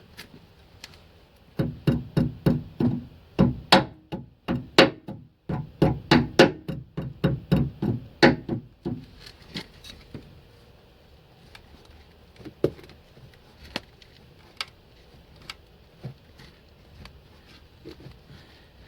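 Hammer tapping a new front suspension lower arm into place: a run of ringing metal blows, about three a second, for several seconds, then a few scattered single knocks.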